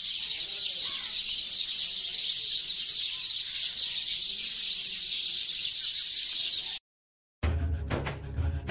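Morning outdoor ambience of birds calling over a steady high-pitched hiss. Near the end the sound cuts off abruptly, and after a brief silence music with heavy drum beats starts.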